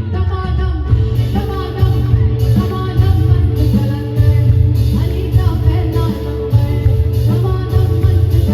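A song playing: a singing voice over music with heavy bass and a steady beat.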